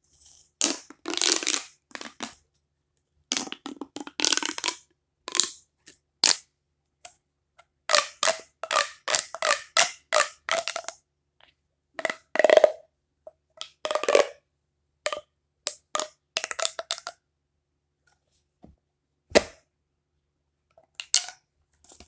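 Plastic pop tube being pulled out and pushed back together: many short pops and rasps in quick runs, with a few short pauses.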